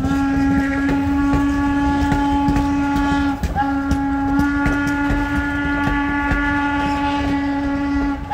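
Steam locomotive whistle blowing long, steady blasts, broken twice for a moment, about three and a half seconds in and near the end, over the rumble and clatter of the moving train.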